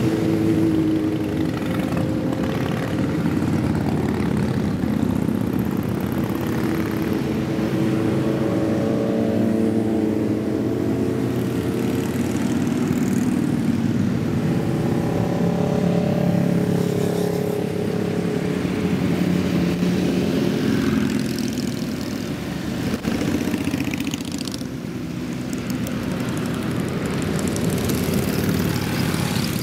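Many motorcycle engines running as a long column of motorcycles passes in a steady stream, individual bikes rising and falling in pitch as they go by.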